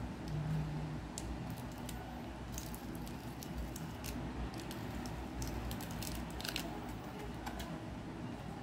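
A paperboard retail box being handled and opened by hand: scattered small clicks and crackles of the cardboard and its sticker seal as the end flap is peeled and pried loose, over a low steady hum.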